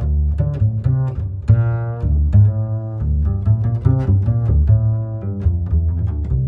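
Background music led by low string instruments: a deep bass line of short notes changing several times a second.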